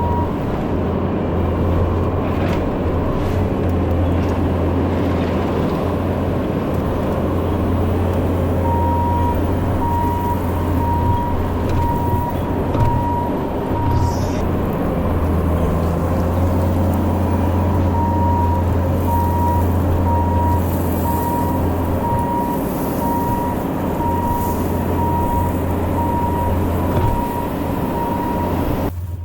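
Bobcat T650 compact track loader's diesel engine running steadily under load, with a reverse-warning alarm beeping about twice a second for stretches in the middle and second half.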